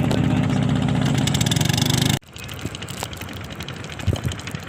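A motor engine running steadily at idle, which cuts off abruptly about two seconds in, leaving a quieter background with a few faint clicks.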